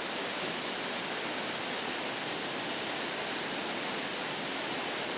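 Steady rush of a three-stage waterfall's falling water: an even hiss that holds level without breaks.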